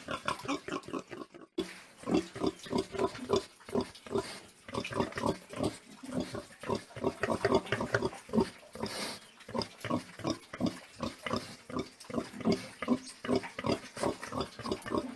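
Pigs grunting: a fast, steady run of short grunts, several a second, with a brief gap about a second and a half in.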